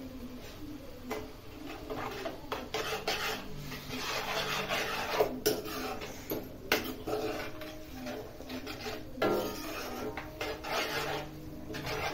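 Metal ladle stirring and scraping chicken gravy in a metal frying pan, in irregular rasping strokes with a few sharp knocks of ladle on pan.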